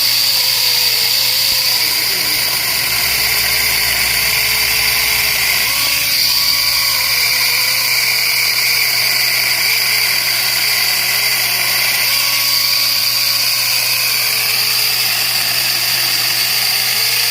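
Battery-powered handheld electric pruning saw running with a steady high motor whine, its pitch dipping and wavering at times.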